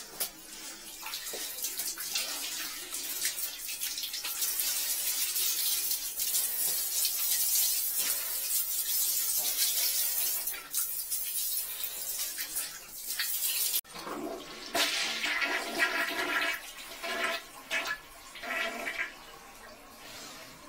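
Toilet flushing: a steady rush of water that cuts off abruptly about two-thirds of the way through, followed by an uneven, choppier sound for the last several seconds.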